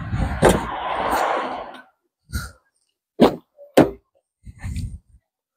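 Car body thunks from a BMW X1: a thunk inside about two seconds of rushing noise, then a few sharp knocks under a second apart as a rear door is opened.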